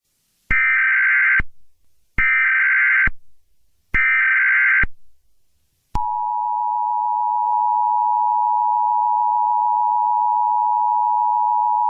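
Emergency Alert System opening: three short bursts of warbling SAME digital header data, each about a second long. About six seconds in, the steady two-tone EAS attention signal starts and holds on.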